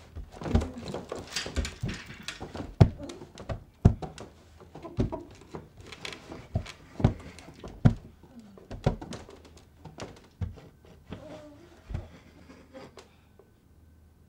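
A man sobbing and whimpering in gasping bursts about once a second, dying away near the end.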